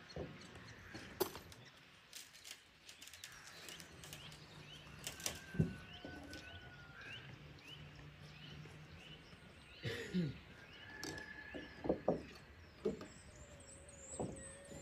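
A small songbird chirping a quick run of short repeated notes, over scattered knocks and clunks from handling work.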